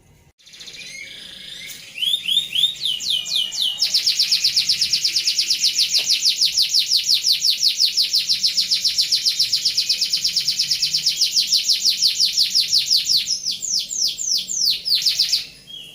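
Domestic canary singing a long rolling trill, a rapid, even run of quick falling notes at about eight a second. The song builds up over the first few seconds and breaks into slower separate notes before it stops near the end.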